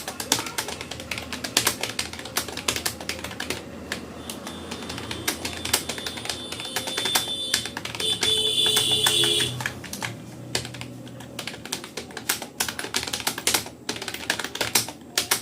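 Fast touch typing on a Rapoo computer keyboard: a dense, uneven stream of key clicks. About eight seconds in, a steady high tone sounds over the typing for about a second and a half.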